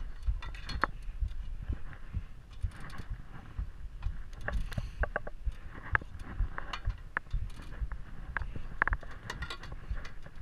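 Crampon points clanking and scraping on the metal rungs of an aluminium ladder as a climber steps down it, with carabiners clinking. Irregular sharp clicks come over a steady low rumble.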